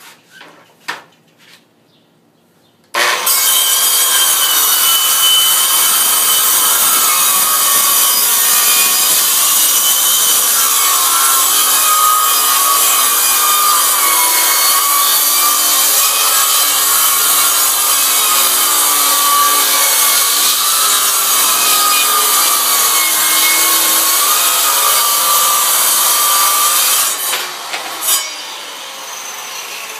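Circular saw running along an aluminium track guide, ripping a straight glue edge off a long board: it starts abruptly about three seconds in and cuts steadily with a wavering whine for over twenty seconds, then drops off sharply near the end, with a couple of knocks after.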